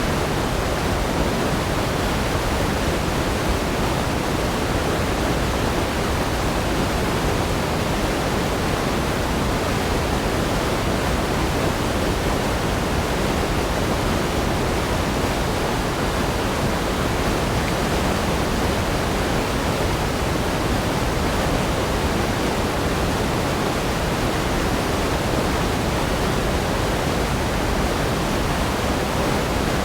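Waterfall: falling water making a steady, unbroken rushing noise with no change in level.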